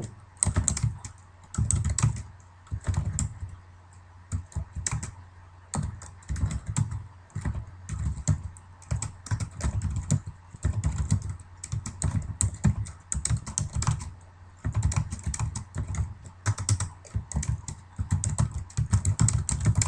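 Computer keyboard being typed on in quick, irregular runs of key clicks with short pauses between them, over a low steady hum.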